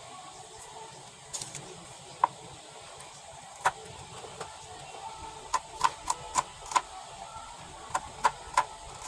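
Kitchen knife chopping a red onion on a cutting board, each stroke a sharp knock on the board. There are two single knocks, then a quick run of five strokes about three a second, then three more near the end.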